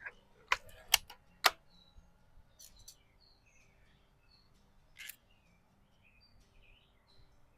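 Custom Daisy 499B BB gun being worked between shots: three sharp clicks about half a second apart, then a few fainter clicks. Small birds chirp in the background throughout.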